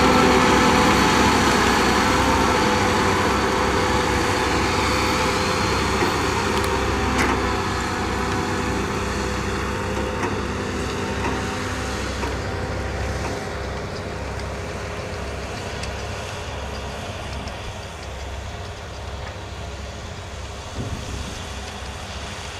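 Ponsse Buffalo forwarder's diesel engine running as the machine drives close past on its bogie tracks, then fading steadily as it moves away.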